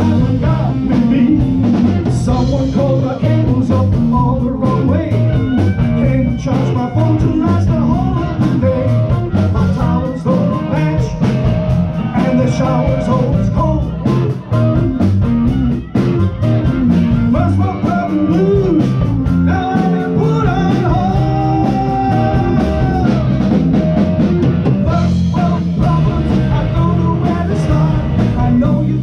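Live blues-rock band playing loudly: electric guitars, bass and drum kit, with a lead line bending in pitch above them.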